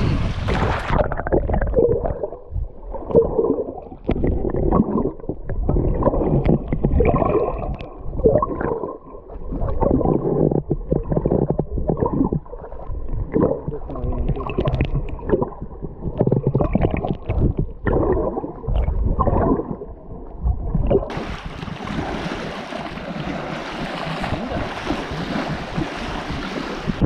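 Muffled underwater sound of water sloshing and gurgling around a submerged camera, with irregular knocks. About twenty seconds in the camera comes back up out of the water, and the sound opens out into wind on the microphone and waves washing on the rock shore.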